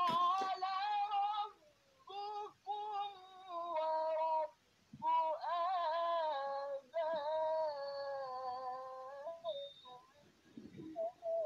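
A single high voice singing slowly without accompaniment, in phrases of long held notes that waver in pitch, separated by short pauses.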